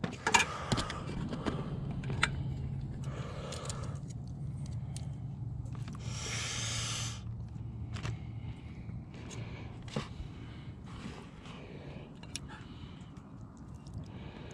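Scattered clicks, knocks and scrapes of metal tongs and hands serving grilled fish from a ceramic bowl onto paper plates, with a brief burst of hissy noise about six seconds in over a low steady hum.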